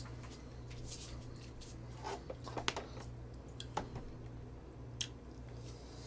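Quiet room with a steady low electrical hum and a few faint, scattered clicks and knocks.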